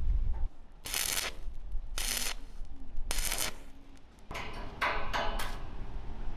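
Electric stick welding on square steel tubing: a string of short arc welds, each a burst of crackling hiss about half a second long, several in quick succession.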